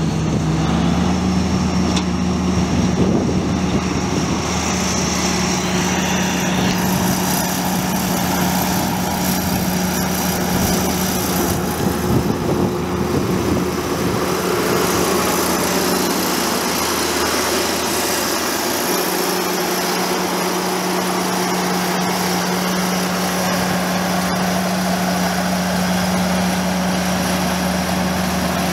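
1990 Ford Versatile 976 four-wheel-drive tractor's Cummins 14-litre six-cylinder diesel running steadily as the tractor drives, a steady low engine hum.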